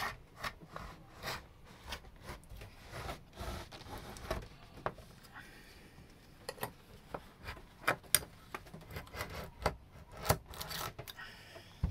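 A metal scraper blade working at the edge of a sealant-bedded boat window frame: irregular scraping and rubbing with scattered sharp clicks and taps as it prises at the window.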